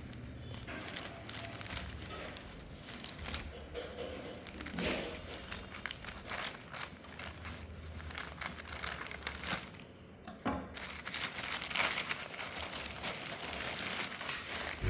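Plastic courier parcel packaging crinkling and tearing as it is cut open with scissors and pulled apart by hand, in continuous rustling strokes with a short lull about ten seconds in.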